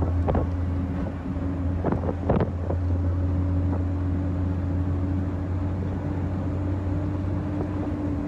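Heavy truck's diesel engine running steadily while driving, heard inside the cab as a low drone. A few short knocks or rattles come in the first two and a half seconds.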